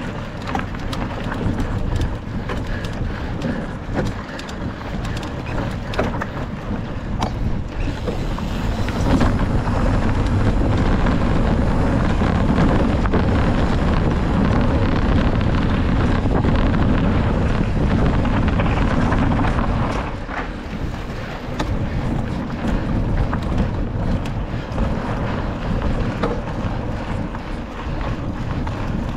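Wind rushing over the microphone of a cross-country mountain bike's point-of-view camera while riding, over a low rumble with scattered sharp clicks and rattles from the bike on rough ground. The rush grows louder from about nine seconds in and eases off at about twenty seconds.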